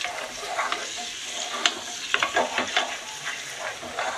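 A wooden spatula stirring and scraping frying onion, ginger-garlic and capsicum masala in an aluminium pressure cooker, with a steady sizzle underneath and irregular knocks and scrapes of the spatula against the pot.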